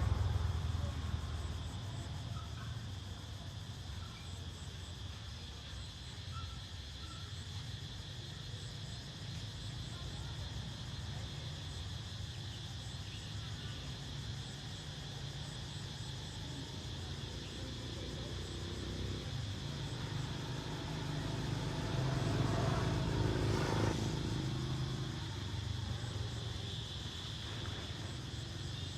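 A low, steady engine rumble with a steady high drone of insects over it; about 22 seconds in it swells louder for a couple of seconds, as of a vehicle passing close.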